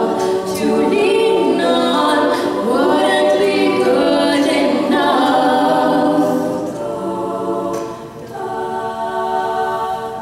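Women's a cappella group singing, with two lead voices over close vocal harmonies from the backing singers. The song ends on a held chord that fades out in the last couple of seconds.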